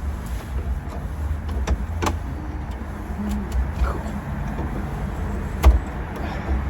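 A few sharp clicks and knocks of hand tools on a door's mortice sash lock as the old lock is worked loose and pulled out, the loudest knock about two-thirds of the way in, over a steady low rumble.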